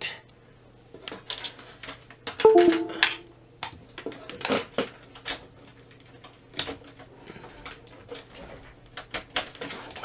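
Scattered light clicks and knocks of a USB cable and connector being handled on a workbench mat, with a brief pitched sound about two and a half seconds in.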